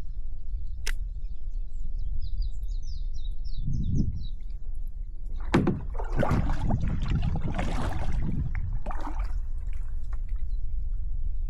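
Water splashing and sloshing around a kayak for about four seconds in the middle, over a steady low wind rumble on the microphone. A bird chirps a quick run of short high notes early on.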